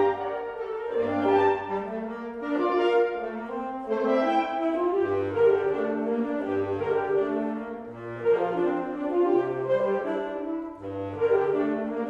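Woodwind chamber ensemble of flutes, clarinets, bass clarinet, saxophones and bassoons playing sustained chords over a moving bass line, in phrases that swell and fade every second or two.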